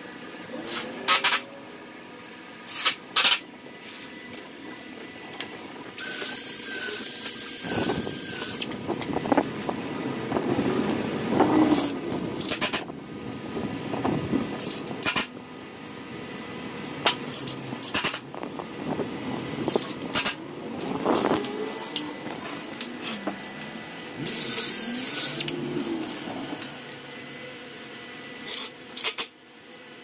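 Ryobi cordless drill boring holes and driving long wood screws into a pine 2x4 frame. It comes in several short bursts at first, then longer steady runs with a motor whine, one about a quarter of the way in and another near the end.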